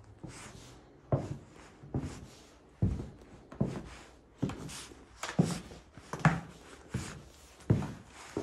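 Footsteps of a person walking across an attic floor: a steady series of about ten short thuds, a little over one a second.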